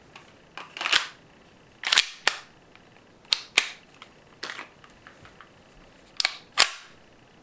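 Sharp mechanical clicks and snaps from handling a Tokyo Marui Hi-Capa 5.1 gas blowback airsoft pistol and its magazine, about eight in all, several coming in quick pairs.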